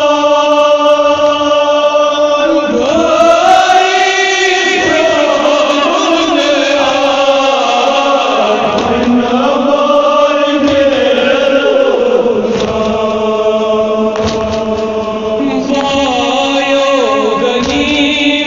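A Kashmiri nohay, a Muharram lament, chanted by male voices in long held notes that waver and glide in pitch.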